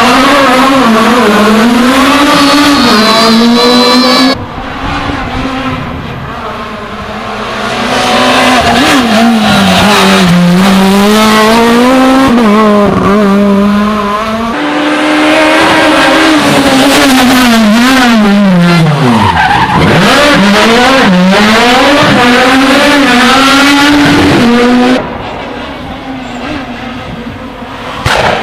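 Rally cars at full attack on a special stage: engines revving hard, rising and falling in pitch through gear changes and lifts, with tyres squealing in the corners. The sound cuts abruptly to a new car about 4, 14 and 25 seconds in, and after the first and last cuts the engine is quieter for a few seconds.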